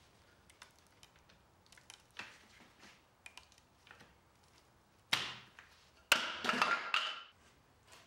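Small clicks and taps of plastic quick-release bar clamps being handled and loosened on a wooden table frame. Then comes a sharp knock, and a second later a louder clatter and scrape lasting about a second, as the laminate top is worked free of the frame.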